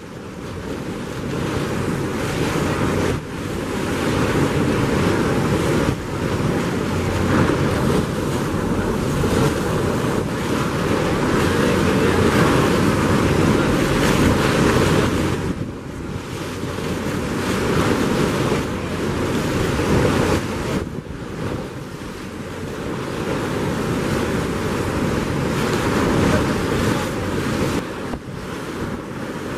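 Steady rushing noise of the 162 m Lady Bowen Falls, a heavy waterfall, swelling and dipping in loudness every few seconds. Wind buffets the microphone.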